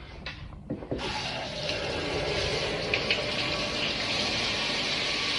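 Steady rush of running water, starting about a second in.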